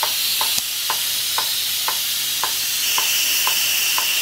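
Electric pressure cooker letting off its steam through the release valve after cooking: a steady hiss with a light tick about twice a second.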